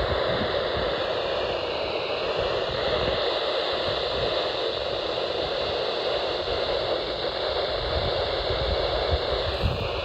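Steady hiss of radio static with no program on the channel.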